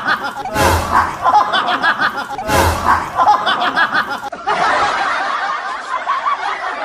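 Many voices laughing and snickering together, like a laugh track, broken by a sharp noise about half a second in and again near three seconds. About four seconds in the laughter changes to a different, steadier recording.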